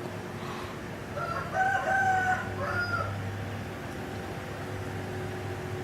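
A rooster crowing once, a single drawn-out cock-a-doodle-doo of about two seconds starting about a second in.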